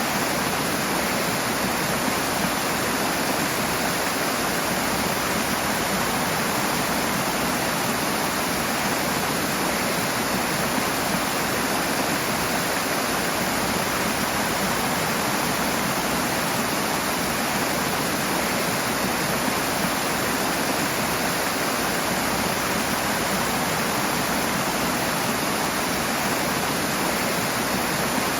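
Rushing water, a steady even roar of a fast stream or cascade.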